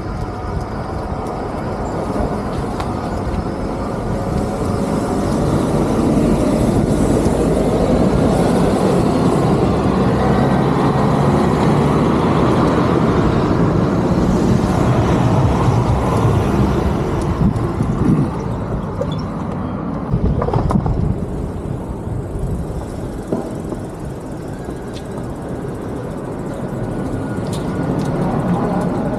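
Street traffic: a vehicle running close by, growing louder over the first few seconds and easing off a little past the middle, with a few short knocks after that.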